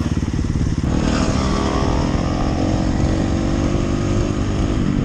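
Dirt bike engine running as the bike is ridden over grass, heard close up from the rider's helmet camera, its note shifting about a second in.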